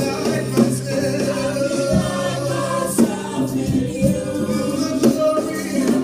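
Live gospel worship music: a choir of voices singing over a band with a steady drum beat.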